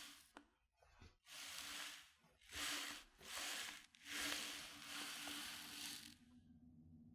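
Soft hissing sound effect in five short surges, the last and longest running about two seconds, over a faint steady low hum.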